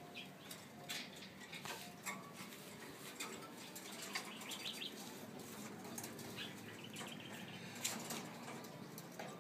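Domestic pigeons moving about in wire cages: scattered wing flaps, scuffles and clicks, with a few short runs of high chirps.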